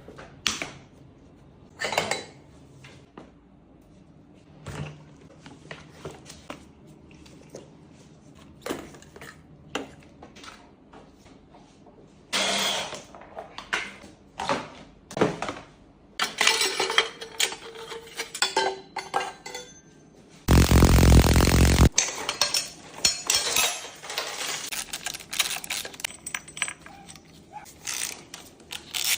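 Metal tools and parts clinking and knocking during the teardown of a Yamaha YZ450F dirt bike, in scattered sharp clicks and clanks. About two-thirds through there is a loud burst of continuous noise lasting about a second and a half.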